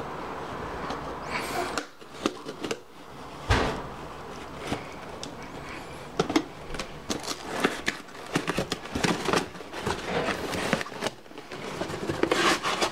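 Knife slitting the packing tape on a cardboard shipping box, with scraping and rustling of the cardboard and a few sharp knocks as the box is handled.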